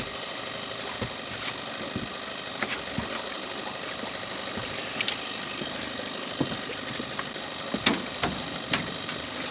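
Boat motor running steadily, with scattered sharp clicks and knocks over it, the loudest about eight seconds in.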